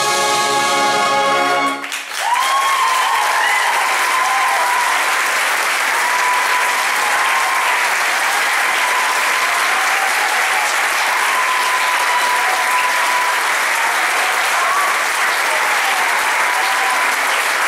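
A brass band holds its final chord, which cuts off about two seconds in. Steady audience applause follows.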